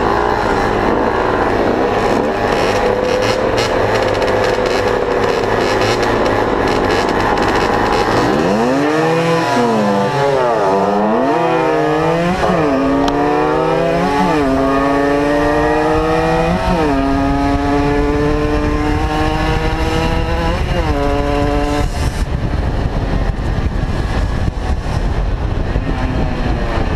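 50cc two-stroke motorcycles idling together at a stop. Then the nearest bike pulls away, its engine rising in pitch through the gears with a drop at each of several shifts, and settles into a steady cruise from about 22 seconds in, with wind rushing over the helmet camera.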